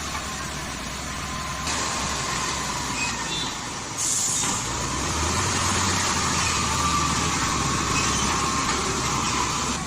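Bulldozer at work, its diesel engine running with a steady noise and a faint whine, growing louder about four seconds in.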